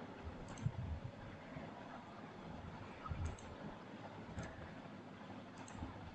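Faint clicks of a computer mouse, about four spread across several seconds, over a low hiss.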